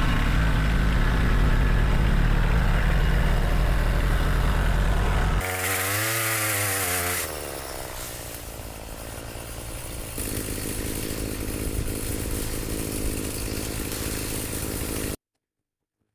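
Engine running steadily. After an abrupt cut comes a motor whose pitch wavers up and down for a couple of seconds, then a steadier motor sound. It all cuts off to silence about a second before the end.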